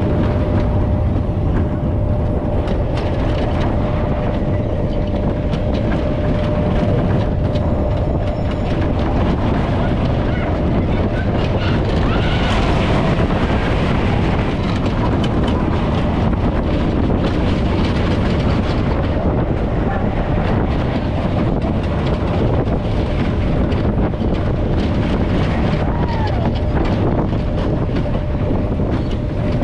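Roller coaster train running along its steel track, heard from a seat on board: a loud, steady wheel-and-track rumble with no letup.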